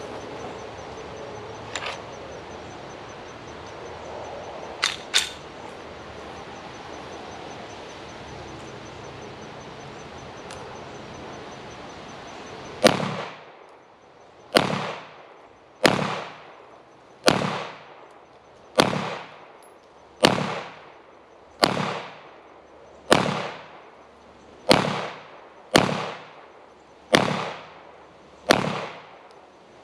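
SIG P320 M17 9mm pistol firing a slow, steady string of about a dozen shots, roughly one every second and a half, each with a short echo. The shots begin a little under halfway through, after quiet background with a few light clicks.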